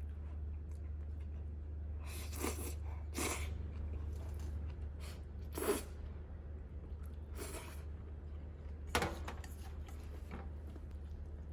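Person eating yaki udon: about five short, breathy mouth sounds, a second or two apart, over a steady low hum.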